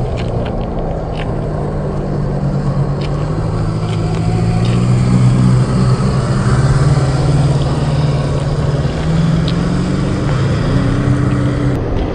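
Brushed 540 electric motor and gear drivetrain of a 1/10-scale RC crawler truck running as it drives over gravel: a low drone that rises and grows louder around the middle of the run, then settles, with a few sharp clicks scattered through it.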